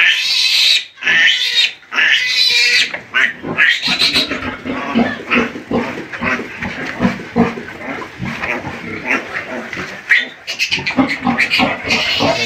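Newborn piglets squealing as they are held for tail docking and teeth clipping. Long, shrill squeals come in the first few seconds and again near the end, with rapid grunting in between.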